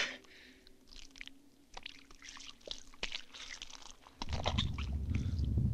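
Horror-film sound effects: faint scattered clicks over a faint steady hum, then about four seconds in a low rumble starts and swells steadily.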